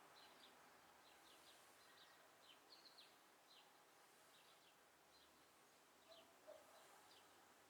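Near silence with faint background hiss and a bird chirping, short quick falling chirps repeated irregularly every half second or so.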